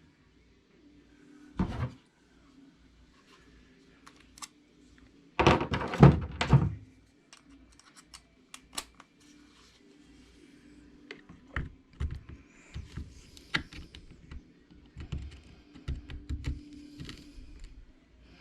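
Hand tools and small parts being handled and set down during a repair: a few thunks, the loudest cluster about five to seven seconds in, then a run of small clicks and taps.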